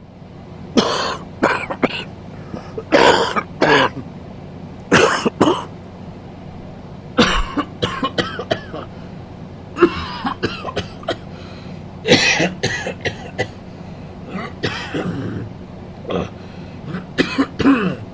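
A man coughing in repeated fits of two to five harsh coughs each, with short pauses between fits.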